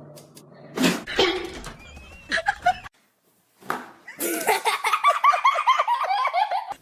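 A person laughing in a quick run of 'ha' bursts for the last two and a half seconds or so, after a knock about a second in and a brief cut to silence.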